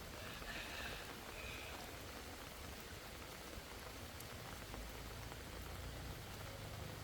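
Steady rain falling, an even hiss that is a little louder during the first two seconds.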